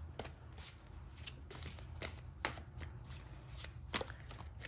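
Tarot deck being shuffled by hand: a run of irregular crisp card slaps and flicks.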